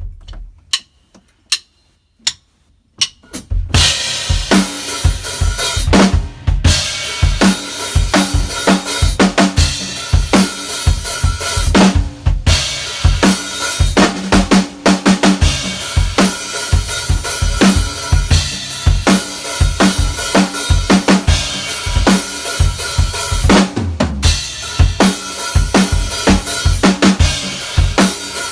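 Gretsch Catalina Club drum kit being played. A few scattered single hits come first, then from about four seconds in a steady groove of bass drum, snare and cymbals, broken by a few short pauses.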